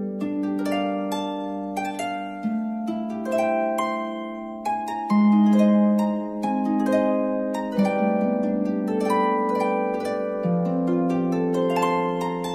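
Background music of plucked, ringing string notes playing a gentle melody, with new notes starting every fraction of a second over lingering ones.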